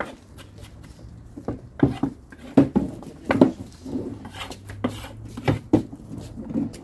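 Kitchen knife chopping tomato on a wooden cutting board: irregular knocks of the blade on the board.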